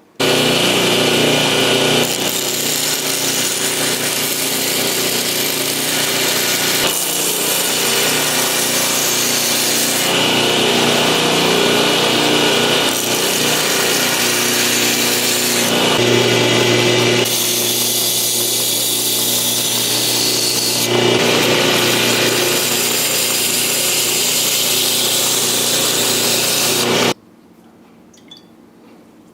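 Electric power tool running steadily, most likely working on the knife, heard as several spliced stretches that change abruptly every few seconds and cut off suddenly near the end.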